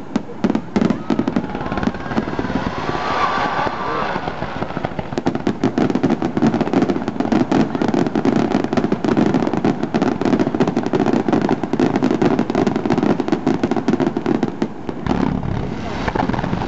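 Fireworks finale: a rapid, near-continuous barrage of aerial shell bursts and crackle, the bangs running together into one long rumble for much of the time.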